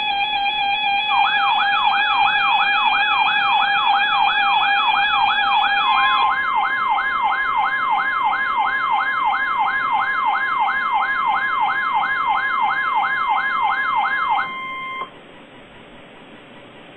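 Broadcast emergency alert tones: an electronic siren sweeping rapidly up and down, about three sweeps a second, over a steady buzzing alarm tone. About six seconds in, the steady tone changes to a single higher pitch, like the NOAA Weather Radio warning alarm tone. All the tones cut off suddenly about fifteen seconds in, leaving a faint hiss.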